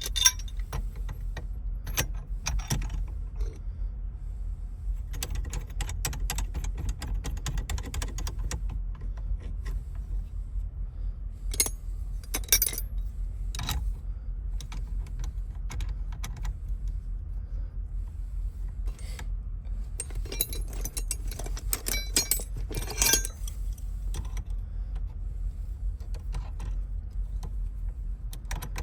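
Scattered metallic clicks and short bursts of rattling from small metal parts and hand tools being handled, over a steady low rumble.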